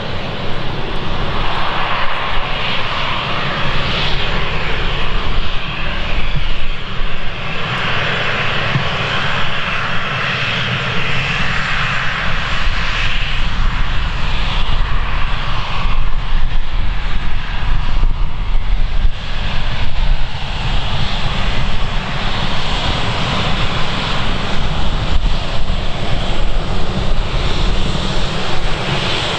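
Jet engines of an Embraer E190 airliner (General Electric CF34 turbofans) running steadily over a low rumble. The engine noise swells and eases several times.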